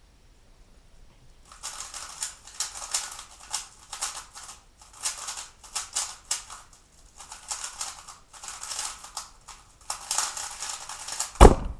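3x3 Rubik's speedcube being turned rapidly by hand during the execution phase of a blindfolded solve: quick runs of plastic clicking and clacking with short pauses, starting about a second and a half in after a silent stretch. Near the end a single sharp knock.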